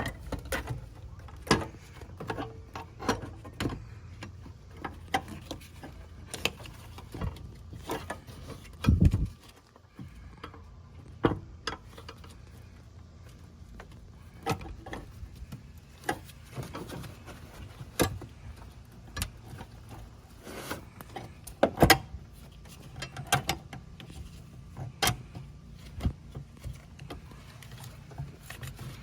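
Scattered clicks and knocks of intake parts being handled and fitted together: the heat shield being pressed onto rubber grommets and a bracket of an aftermarket air intake airbox, with one louder thump about nine seconds in.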